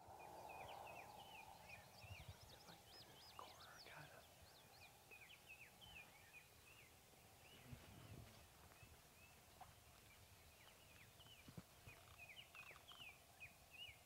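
Faint outdoor chorus of songbirds giving many short chirps throughout, with a distant wild turkey gobbling, clearest in the first couple of seconds.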